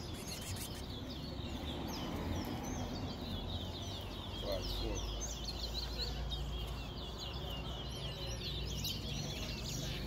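Caged towa-towa finches singing, a fast, unbroken stream of short, high chirping notes over a low background hum.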